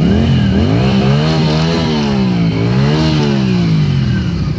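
A vehicle engine being revved, its pitch rising and falling twice.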